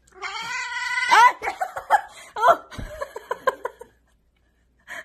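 A cat yowling while licking a squeeze-tube treat: one drawn-out call lasting about a second, then a quick run of short wavering cries, about four a second, that stops about a second before the end.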